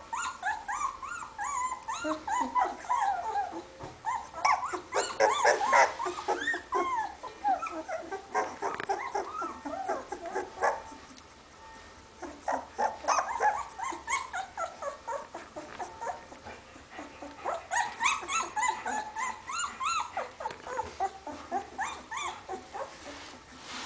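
Two-week-old Hovawart puppies whimpering and squeaking in many short, high, wavering cries, with a couple of brief lulls.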